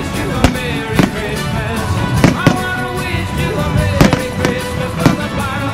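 Fireworks going off in sharp, irregularly spaced bangs, about six or seven of them, over music that plays on throughout.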